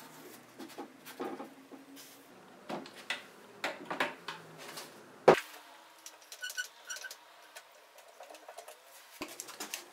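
Hands working on a kitchen base unit: scattered clicks and knocks as a cupboard door is moved and a quick-release bar clamp is positioned. The loudest is one sharp click about five seconds in.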